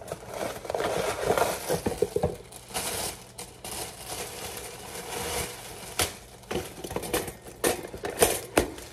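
Cardboard box of frozen waffles and its plastic inner bag handled and crinkled, with scattered sharp clicks and knocks in the second half.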